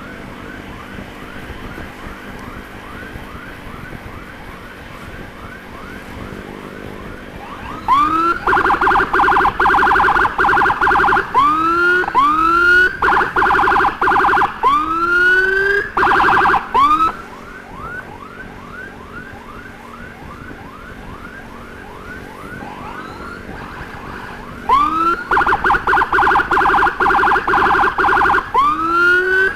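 Electronic emergency sirens. A fainter siren runs through the whole stretch in a fast repeating yelp. A much louder siren cuts in about eight seconds in, switching between single rising whoops and a rapid warble, drops out a little past halfway, then comes back near the end.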